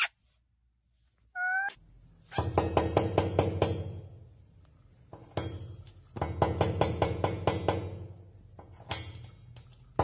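A short chirp, then several runs of rapid sharp taps, about eight to ten a second, each run lasting one to two seconds: a cockatiel tapping its beak against a glass pane.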